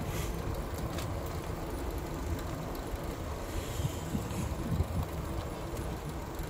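Steady low rumble of riding an Aventon Aventure 2 fat-tire e-bike at slow speed: wind over the microphone and the tyres rolling, with a few faint ticks.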